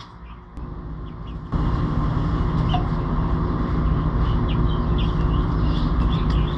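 Short high bird chirps, many in quick succession, over a steady low rumble that starts abruptly about a second and a half in.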